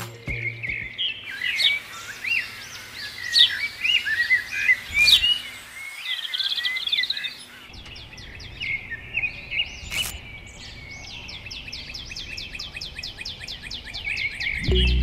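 Birdsong: many quick, high chirps and whistles overlapping, then from about halfway a fast, even trill that runs on.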